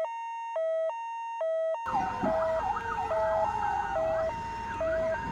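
Electronic two-tone hi-lo siren of a toy fire truck, switching steadily between two pitches about every half second. Background noise and faint warbling sounds join about two seconds in.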